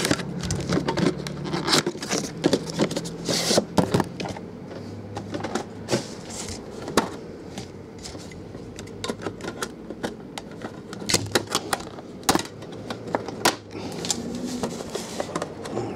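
Shrink wrap being slit with a box cutter and peeled off a cardboard trading card box: irregular crinkling of plastic with sharp clicks and taps from handling the box.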